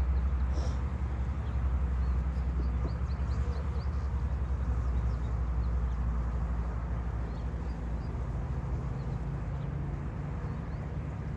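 Steady low hum of many honeybees buzzing around an open package, agitated by the handling of their queen. Frequent faint, short bird chirps sound over it.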